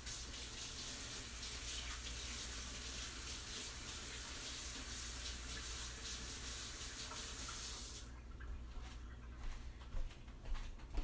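Kitchen sink faucet running while a spoon is rinsed under it, shut off about eight seconds in, followed by a few light knocks.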